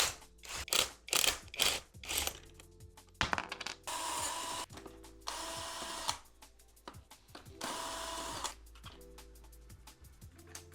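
Cordless power drill-driver whirring in three short runs of under a second each, backing out fasteners as the e-scooter's swing arm is taken apart. Clicks and knocks of parts and tools being handled come first, over soft background music.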